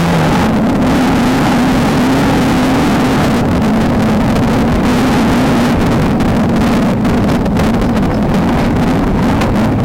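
Desert off-road race car engine running hard at high, fairly steady revs with small rises and dips, heard from onboard over loud road and wind noise and frequent short knocks as the car crosses rough ground.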